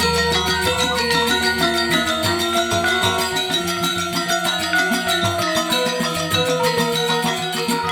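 Balinese gamelan playing: fast, dense strokes on bronze metallophones over a deep gong tone that fades over the first few seconds.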